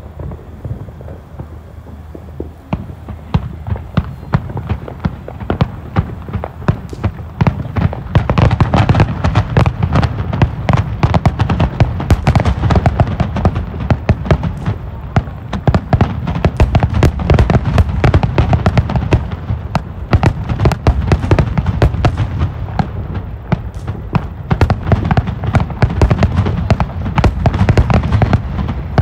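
Aerial fireworks display going off across an open field: a fast, continuous string of bangs and crackles, sparse at first and thickening about eight seconds in into a dense barrage.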